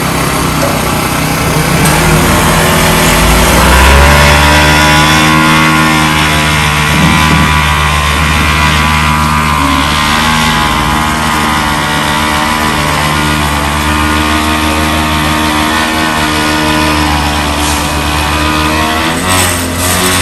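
Small gasoline engine of a vibrating power screed running steadily at high speed, shaking the screed blade as it is drawn across wet concrete. It grows louder about three to four seconds in.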